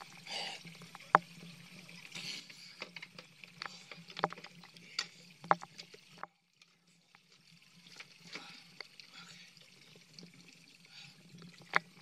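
Hot tub water sloshing and splashing as the loose plastic filter cover is worked back into place, with several sharp plastic clicks and knocks, over a low steady hum. The sound cuts out briefly near the middle.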